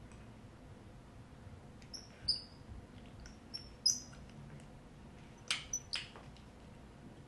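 Faint, short high-pitched squeaks and clicks from a 1.5-inch Hot Tools curling iron as its spring clamp is opened and closed on a section of hair: a few squeaks about two seconds in and again around four seconds, then two sharper clicks a little after five seconds.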